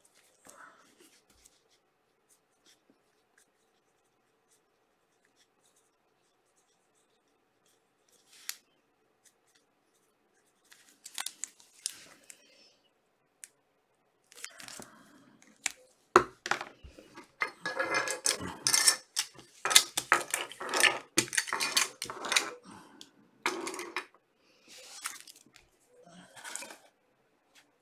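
Plastic crinkling and rustling as trading cards in plastic holders and sleeves are handled and packed. It comes in bursts starting about ten seconds in, is busiest in the second half, and has a few sharp clicks.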